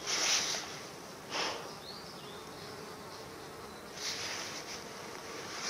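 Dry leaf litter rustles in three short bursts as a snared young sika deer is handled and freed from the foot snare. A faint, steady buzz of flying insects runs underneath.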